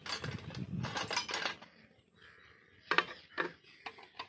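Metal spanners clattering as a hand rummages through a metal tool tray, then a few sharp metallic clinks, the loudest about three seconds in.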